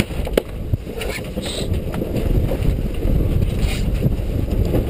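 Wind buffeting the microphone aboard a sailboat under way, a low rushing noise that swells a little after the first couple of seconds, with a few sharp clicks and knocks from the boat.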